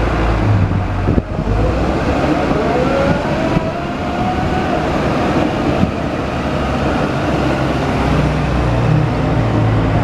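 Komatsu PW160 wheeled excavator's diesel engine running steadily, with a whine that rises in pitch over a few seconds and a single knock about a second in.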